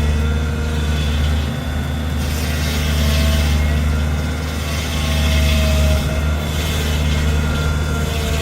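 A heavy machine's engine running steadily, with a constant low hum.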